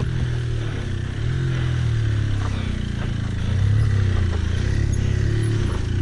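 Small motorcycle engines running, one labouring up a steep loose gravel climb. Its note rises and falls, and it grows louder about halfway through as the bike comes closer.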